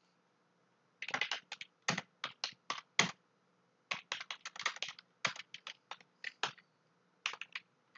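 Computer keyboard typing: quick runs of keystrokes starting about a second in, broken by short pauses.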